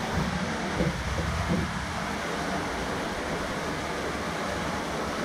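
Steady rush of stream water flowing through a narrow cave passage.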